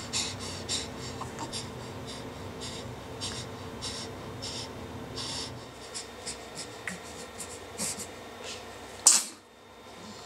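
A newborn baby squirming on his back on a rug: a run of short, soft scratchy noises as he moves and breathes, with one sharper, louder noise about nine seconds in.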